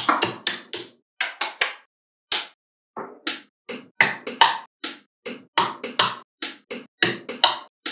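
Small magnetic balls clicking as they snap onto each other one after another, in irregular sharp clicks that often come in quick runs of two or three.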